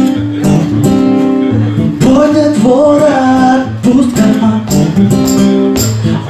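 Acoustic guitar strummed in a steady rhythm, with a man singing a melody over it from about two seconds in.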